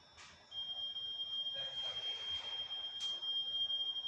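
Copenhagen Metro door-closing warning tone: one steady high-pitched tone that starts about half a second in and holds. A single sharp click comes about three seconds in.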